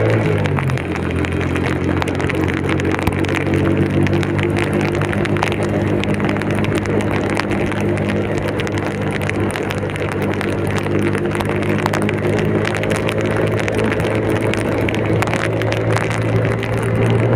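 A vehicle engine running on the road in heavy rain. Its pitch drops quickly in the first second as it slows, holds steady, then climbs gently near the end. Under it runs a hiss of rain with scattered ticks of drops.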